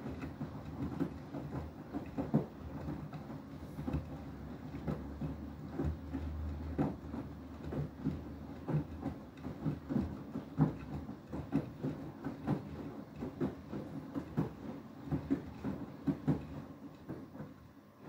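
Beko WTK104121W washing machine drum tumbling a soaked mattress topper in the main wash, water up to the door glass: a steady motor hum with frequent sloshing thuds, two or three a second, as the heavy wet load falls. The drum stops near the end.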